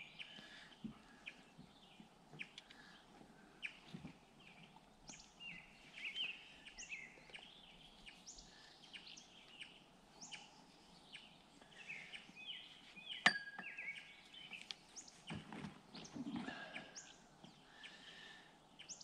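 Songbirds chirping and singing in many short calls and quick rising notes, with one sharp knock about thirteen seconds in.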